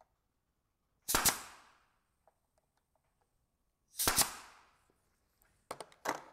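Nail gun firing brad nails into a wooden moulding strip: two sharp shots about three seconds apart, then two more in quick succession near the end, each with a short fading tail.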